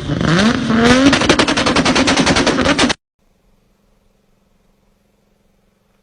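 Very rapid automatic gunfire, a fast even rattle of shots with a pitched sound gliding down and up underneath it. It cuts off abruptly about three seconds in, leaving only a faint steady hum.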